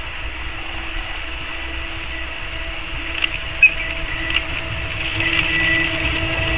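EF64 DC electric locomotive approaching at the head of a passenger train, its running hum and rumble growing steadily louder as it nears. A few sharp clicks come around the middle.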